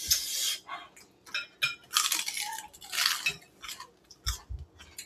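Crisp crunching and rustling of a romaine lettuce leaf handled close to the microphone, in several short bursts, with light clinks of cutlery and dishes.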